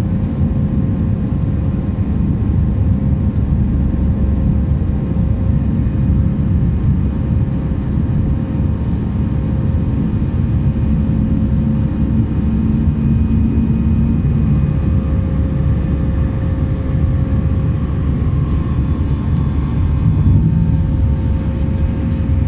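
Airliner jet engines and rushing air heard from inside the passenger cabin during the climb after takeoff: a loud, steady low rumble with a constant hum. A lower droning tone in it stops about two-thirds of the way through.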